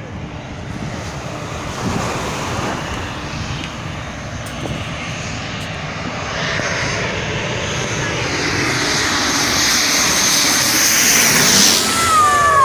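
Airliner's engines getting steadily louder as it comes in low overhead to land, with a high whine building near the end. The pitch drops as it passes.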